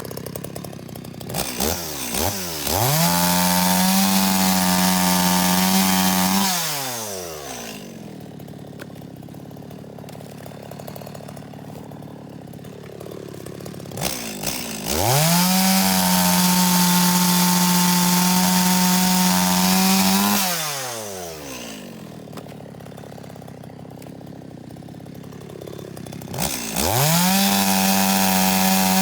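Two-stroke chainsaw run at full throttle for cuts of about five to six seconds each, dropping back to idle between them: a cut at the start, another about halfway, and a third starting near the end.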